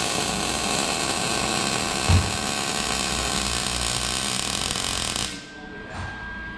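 A power tool runs steadily for about five seconds and then cuts off, with one thump about two seconds in.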